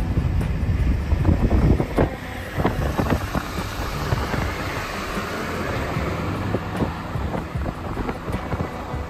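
Rumble of a car driving along a road, with wind buffeting the microphone as it films from the moving car, and a few brief knocks in the first few seconds.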